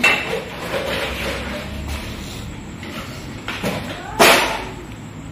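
A plastic spoon scraping and tapping as turmeric powder is scooped and spread over raw fish in a plastic basin, with a louder knock about four seconds in.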